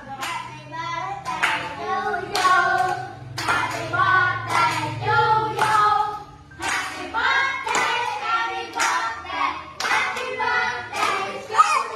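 A group of people singing a birthday song together while clapping their hands.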